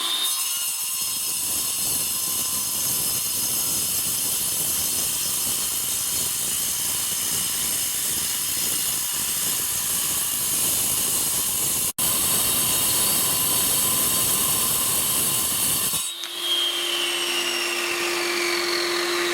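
Bosch angle grinder with a diamond cutting disc sawing through concrete, a loud steady hissing grind. About sixteen seconds in the cut ends and the disc winds down with a falling whine, while a vacuum cleaner used for dust extraction keeps up a steady hum.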